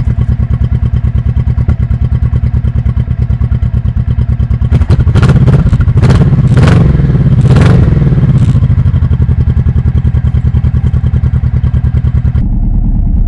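1998 Honda Shadow VT1100T's V-twin engine idling with an even, loping pulse, blipped a few times about five to eight seconds in before settling back to idle. Heard through a lapel mic clipped to the back of the sissy bar.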